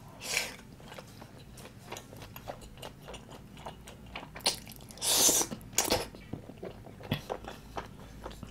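Close-miked chewing and biting of tteokbokki, thick wheat rice cakes in sauce, with many soft wet mouth clicks. There is a short slurp just after the start and a louder, longer slurping bite about five seconds in.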